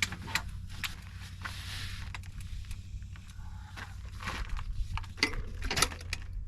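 Scattered clunks, clicks and footsteps as a folded e-bike is handled and set down, over a steady low hum.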